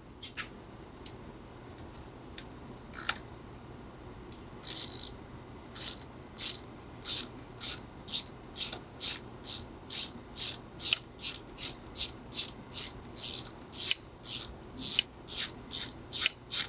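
Hand ratchet wrench clicking as it backs out long bolts, in steady strokes of about two clicks a second. A few scattered clicks come first, and the regular ratcheting starts about five seconds in.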